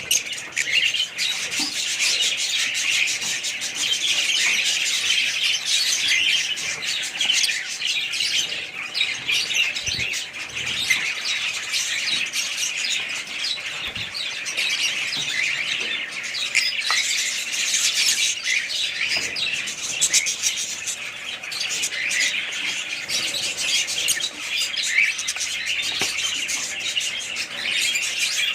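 A flock of small cage birds chirping and chattering without pause in a dense, overlapping chorus of short, high calls.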